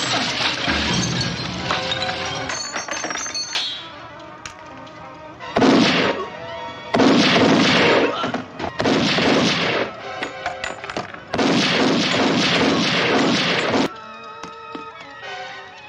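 Film action soundtrack: several bursts of rapid automatic gunfire with bullets striking a yacht and wooden dock, over a dramatic music score. The bursts come one after another through the second half, each lasting a second or two.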